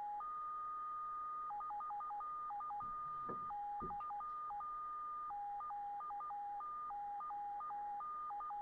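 QO-100 satellite's upper beacon heard through an SDR in upper-sideband mode: a clean tone that switches back and forth between a lower and a higher pitch in an irregular data-like pattern, over a narrow band of receiver hiss. The tones hold a steady pitch with no audible drift.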